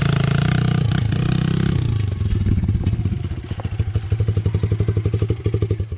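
Honda CRF100F pit bike's small single-cylinder four-stroke engine running under throttle as it is ridden over grass. About two seconds in it drops to idle, with a steady putter of separate firing pulses.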